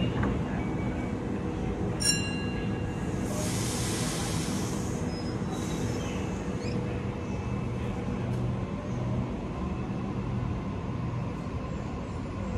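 Double-deck electric suburban train standing at the platform, its equipment giving a steady hum. About two seconds in there is a short, sharp beep, and about a second later a hiss of released air lasting a couple of seconds.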